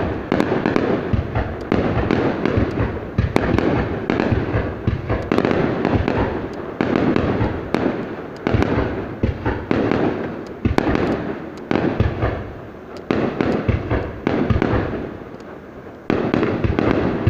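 Fireworks display: a continuous barrage of bangs from bursting shells, packed closely together. The bangs ease off briefly near the end, then start again with another loud run.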